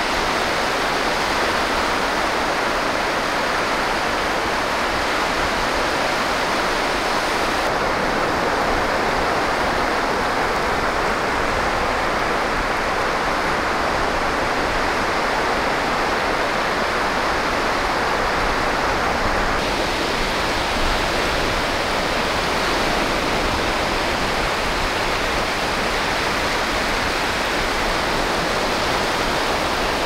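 Small waves washing in over a sand and pebble beach: a steady rush of surf, whose tone shifts slightly about 8 seconds in and again about 20 seconds in.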